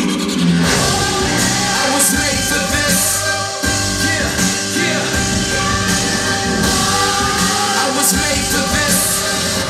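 Rock music with singing, played over loudspeakers in a room.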